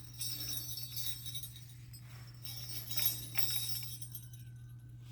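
Small jingle bells hung on a carved walking stick jingling unevenly as the stick is moved, over a steady low hum.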